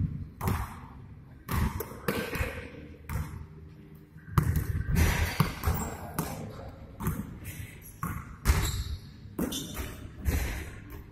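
Basketball bouncing during play, with repeated irregular thuds.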